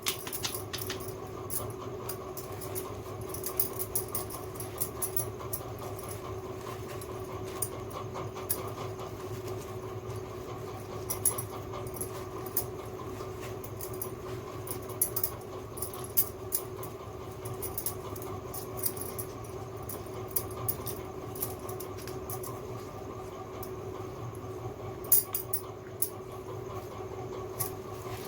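Small plastic toy kitchen pieces clicking and tapping against each other at irregular intervals, over a steady background hum.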